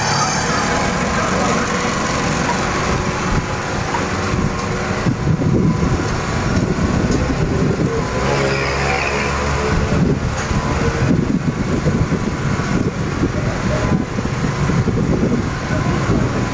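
Small motorcycle engine running steadily, with a few short sharp clicks.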